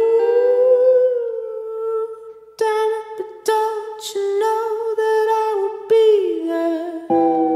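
Background music: a humming voice holding long wavering notes, joined from about two and a half seconds in by plucked-string notes.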